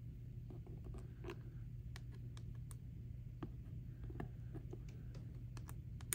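Small algebra tiles clicking and tapping faintly as they are picked up and set down one by one on a dry-erase board: irregular light clicks over a low steady hum.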